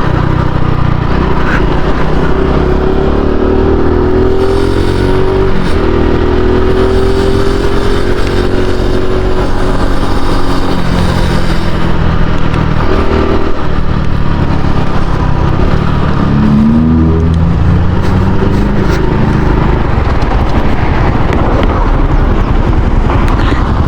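Honda Pop 110i's small single-cylinder four-stroke engine running under way, its revs rising and falling several times, with a steady thin whine sitting over it. The owner hears an annoying noise from the front at any rpm, which he suspects comes from bent rims or the side bars he fitted.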